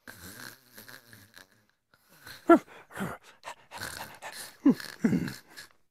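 A boy snoring: a run of rough, irregular snorting breaths, several with a short drop in pitch.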